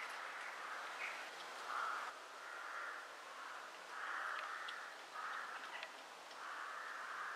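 A bird giving a series of harsh calls, each about half a second long, roughly one a second, with a few faint clicks in between.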